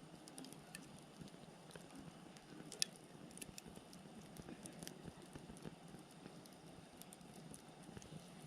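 Wood campfire burning quietly: a soft low hiss of flame with scattered crackles and pops from the burning firewood, one sharper pop about three seconds in.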